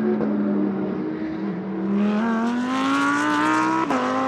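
Race car engine sound effect revving: the engine note dips, then climbs steadily as it accelerates, drops abruptly at a gear change near the end and starts climbing again.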